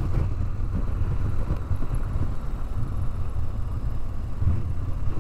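Motorcycle riding at road speed: a steady low rumble of wind buffeting the action camera's microphone, with the engine running underneath.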